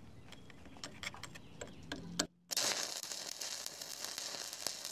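Stick-welding arc from a 1/8-inch 7018 electrode, starting abruptly about halfway through and crackling steadily for about three seconds while a steel wear plate is tacked onto the boom. A few light clicks come before it.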